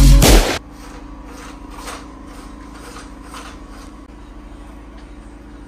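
Background music with a beat cuts off suddenly about half a second in. After it comes a steady low hum with a few faint clicks.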